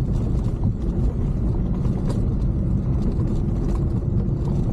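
A vehicle driving up a rough gravel road: a steady low rumble of engine and tyres, with a single knock about two seconds in.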